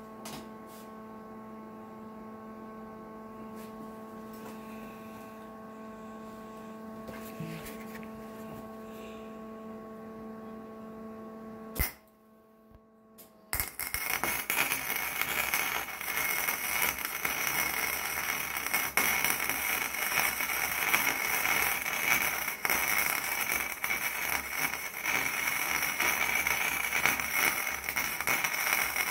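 Steady electrical hum, then a click and a brief pause. After that an electric welder's arc crackles continuously while a weld bead is run around the inside of the stuck bearing race, meant to shrink the race so it falls out of the transfer case bore.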